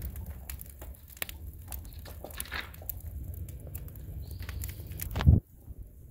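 Brush fire burning fiercely in an open-topped steel flame-cap biochar kiln: a low steady roar with frequent crackles and pops. A louder burst comes about five seconds in, then the roar cuts off suddenly, leaving only faint crackle.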